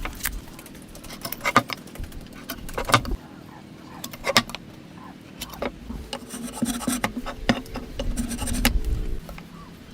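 Hand woodworking: sharp knocks on wood at irregular intervals, with rubbing and scraping between them, and a steady hum from about six to nine seconds in.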